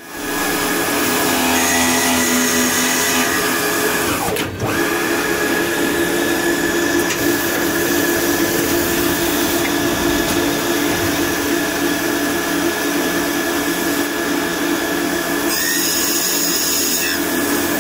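Automatic glass lid drilling machine running, its drill motors giving a steady whine with a low tone and a high tone. The sound dips briefly about four and a half seconds in.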